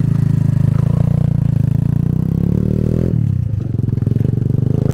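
Small single-cylinder engine of a Honda Monkey-style minibike running close by as it rides off; its pitch dips and picks up again about three seconds in.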